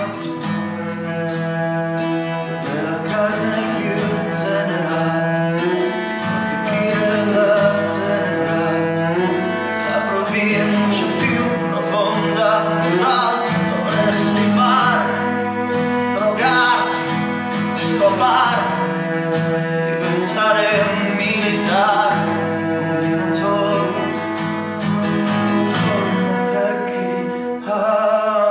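Acoustic guitar strumming chords under a bowed cello playing sustained notes and melody lines: an acoustic duo playing a song.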